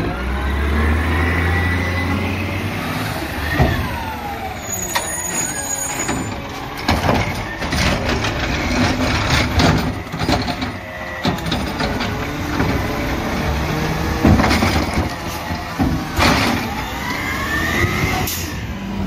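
Automated side-loader garbage trucks working curbside carts. The engine revs up and down to drive the hydraulic arm, with a whine that rises and falls several times, knocks and bangs as carts are lifted and dumped, and a brief high hiss of air about four seconds in.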